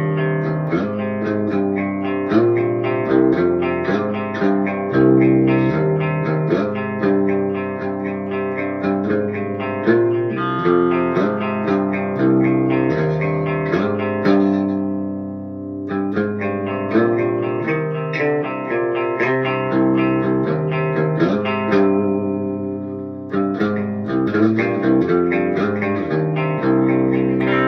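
Electric guitar played through a Hiwatt Hi-5 5-watt tube amp's clean channel in treble mode: picked chords and single notes ringing out with a bright, sparkling clean tone. About halfway through, a chord is left to ring and fade before the playing picks up again.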